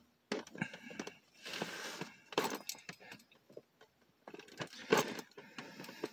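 A ring of keys jangling while one key scrapes and pries at a cardboard toy package, in irregular clicks and scrapes. The loudest clatter comes about five seconds in.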